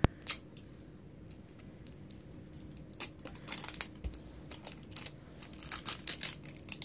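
Small plastic clicks and scratches of fingers picking and peeling at the pull tab on an LOL Surprise Pets plastic ball, sparse at first and coming thicker from about three seconds in.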